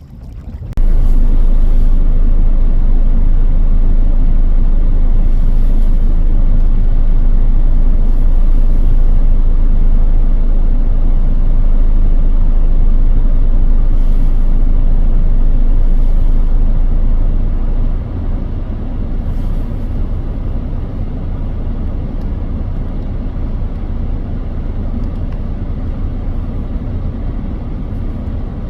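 Strong wind buffeting the microphone, a loud low rumble that sets in abruptly about a second in and eases somewhat after about 18 seconds.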